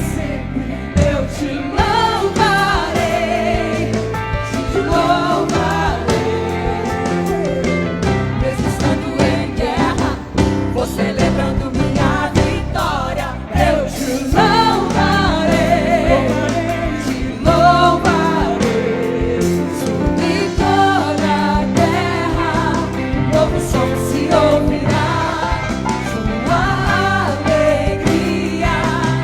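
Gospel worship song performed by singers with a band behind them, sung melody over steady percussion and accompaniment.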